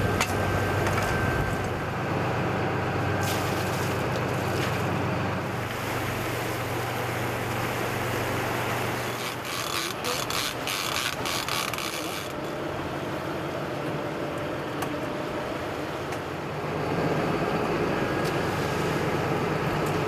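A boat's motor runs steadily under rushing water and wind noise. About ten seconds in, a few seconds of rapid clicking come through.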